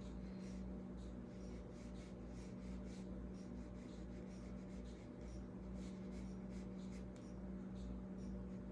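Paintbrush strokes brushing and scratching on watercolour paper: many short, irregular strokes, over a steady low electrical hum.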